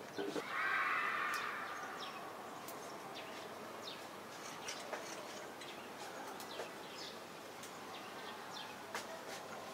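A cat rubbing its face and body against leafy stems, making rustling and brushing of fur on leaves. The loudest part is a swish from about half a second to two seconds in. Light crackles and ticks follow.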